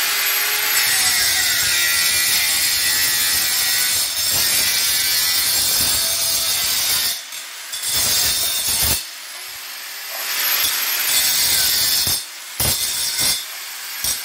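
Angle grinder cutting through a PVC pipe to shorten it by about half a centimetre. It cuts in several passes, dipping briefly about seven and nine seconds in, and ends in a few short bursts.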